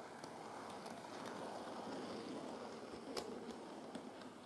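Model steam locomotive, the Bachmann BR Standard Class 4 No.75069, running along the track: a steady whirr and rumble of its motor and wheels that swells and then eases off as it passes, with a few sharp clicks, the loudest about three seconds in.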